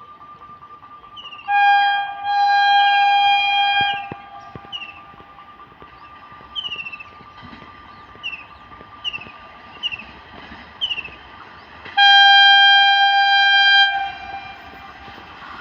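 Indian Railways electric locomotive horn sounding: a short blast about a second and a half in, straight into a long blast of about a second and a half, then another long blast of about two seconds near the end. Between the blasts come a string of short, falling chirps.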